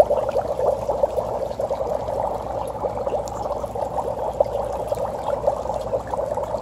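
A brick of dry ice bubbling steadily in a steel bowl of water, with dense, irregular gurgling and popping as the gas escapes through the water.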